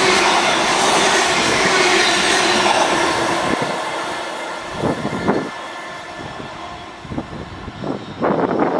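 Locomotive-hauled train of Mark 3 coaches passing at speed: a loud rush of wheel and air noise that fades over a few seconds as the rear of the train draws away, followed by a few short separate surges of noise as it recedes.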